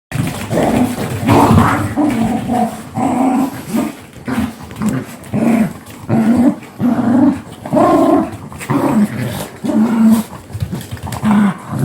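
Dogs fighting: loud growls and snarls, one after another in quick succession, starting suddenly.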